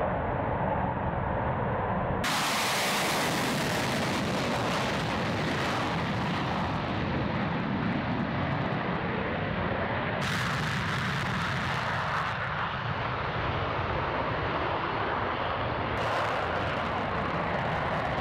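Twin-engine Sukhoi fighter jet taking off and climbing away, its engines giving a steady, loud rushing noise. The sound changes abruptly about two seconds in, around ten seconds and around sixteen seconds, where separate shots are joined.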